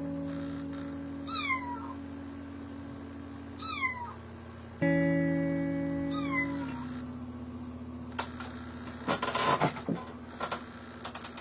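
A kitten mewing three times, short high cries that fall in pitch, over background music with held chords. Near the end come a few clicks and a short scratchy rustle.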